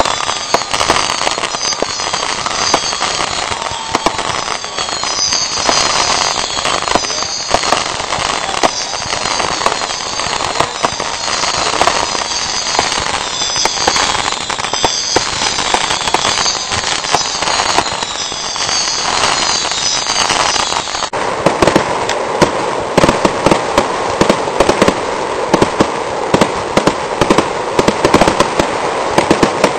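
Aerial fireworks going off without a break: a dense, continuous crackling of bursting shells and stars, turning to sharper, louder pops and bangs about two-thirds of the way through.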